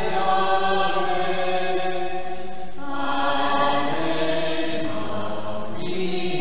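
Choral music: voices singing slow, sustained chant-like notes, the harmony shifting every few seconds.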